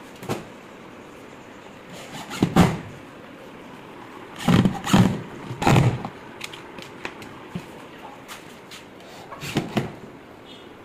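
Laminated wooden box and its plastic corner fittings being handled during assembly: several separate knocks and short scrapes, with a run of three louder ones about halfway through.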